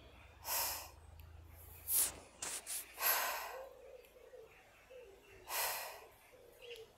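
A series of short, irregular sniffs and puffs of breath close to the microphone, about six or seven of them.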